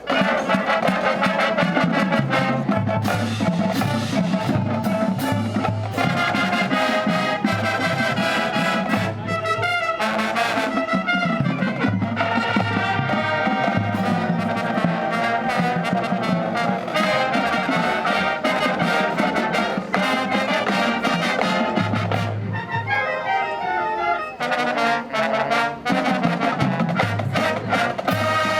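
Marching band playing at full volume, its brass section of trombones and trumpets carrying the music, which thins out briefly about two-thirds of the way through before the full band returns.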